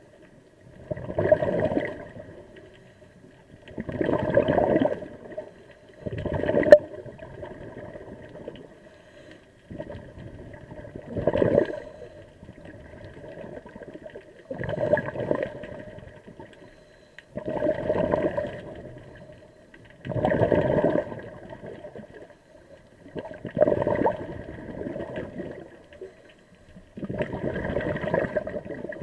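A scuba diver breathing through a regulator underwater. Exhaled air bubbles out in nine loud bursts a few seconds apart, with quieter breathing noise between them.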